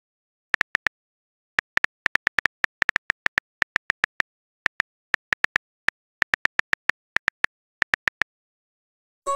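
Phone keyboard typing clicks: quick runs of short, sharp taps, one per letter, with brief pauses between the runs.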